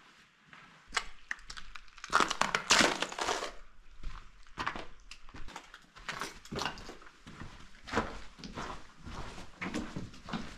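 Footsteps crunching on a gravel and sand canyon floor at a walking pace, about one to two steps a second, with a louder, denser stretch of crunching about two seconds in.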